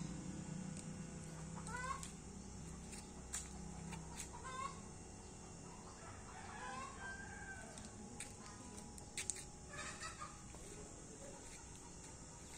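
Faint bird calls, short rising calls repeating every second or two over a quiet outdoor background.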